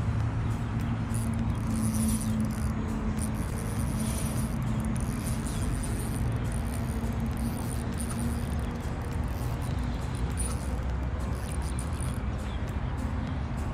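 Steady outdoor ambience: a constant low drone of road traffic, with insects buzzing high up that come and go.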